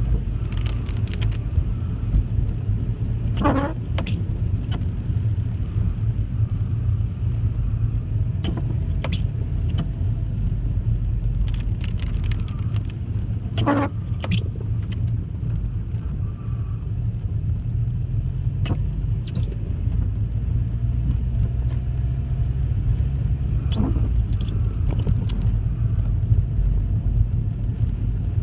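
A car driving, a steady low rumble of engine and road noise, with a few sharp clicks and rattles now and then.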